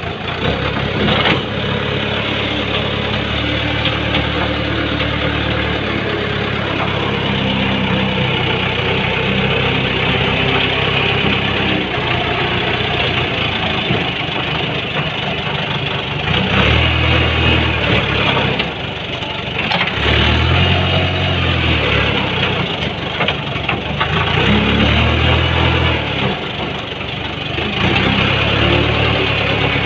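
JCB loader's diesel engine running at work, heard from the operator's seat, with three surges of heavier load in the second half as the bucket works the ground.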